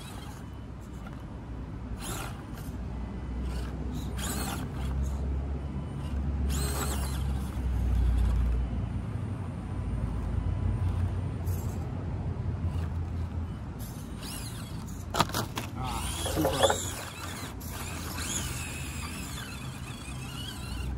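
Small RC crawler's 90-turn 130 brushed motor and geartrain whirring under load, with clicks, creaks and knocks as the tyres scrabble against rock without enough grip to climb. There is a cluster of louder knocks about 15 to 17 seconds in.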